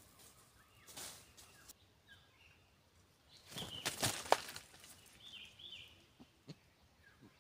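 Owl flapping its wings as it lands on a log, a short cluster of loud wing flaps and rustling about halfway through. Small birds chirp faintly in short calls before and after.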